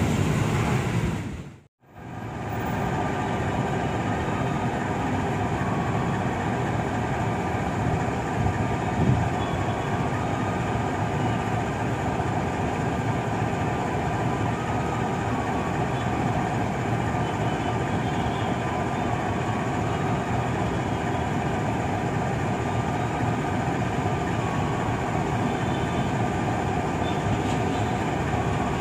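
A passenger train rolls past, cut off abruptly after a second or two; then a CC206 diesel-electric locomotive idles at the platform, a steady engine drone with a few constant tones over a low rumble.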